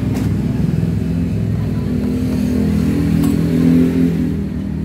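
A motor vehicle engine running steadily, rising in pitch and getting louder toward about four seconds in, with a couple of light clicks.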